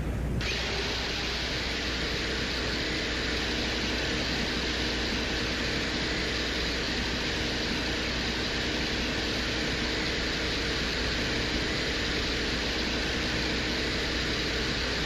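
The Venera-14 lander's microphone recording from Venus: a steady, mysterious hum under an even hiss, with a faint mechanical whirr. About half a second in, the hiss turns brighter and then holds steady.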